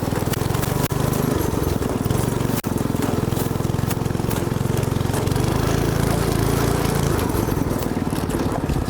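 Go-kart's small engine running steadily, with a fast, even firing rhythm.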